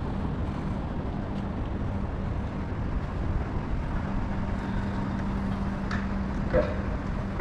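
Steady low rumble of motor vehicle noise with a constant low hum underneath, and a couple of faint brief sounds a little past the middle.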